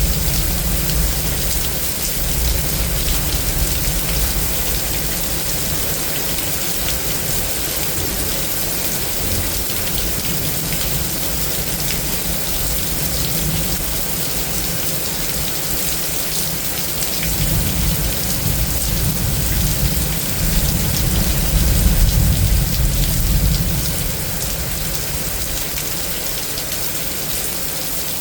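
Heavy rain pouring steadily in a severe thunderstorm. A low rumble swells near the start and again from about two-thirds of the way through.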